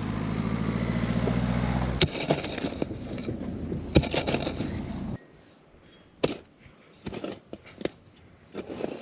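An engine running steadily, with sharp knocks about two and four seconds in, cuts off abruptly about five seconds in. After that come scattered light knocks and scrapes.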